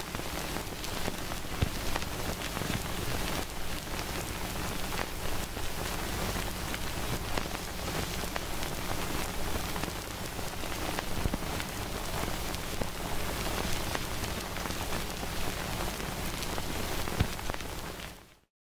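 Steady rain: an even hiss with a few sharp ticks. It fades out near the end.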